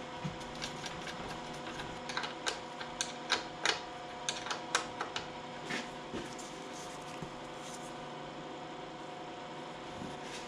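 A run of light clicks and clacks from hands handling parts around a tractor's engine bay, air cleaner and battery as the front grille screen is fitted back, over a steady background hum.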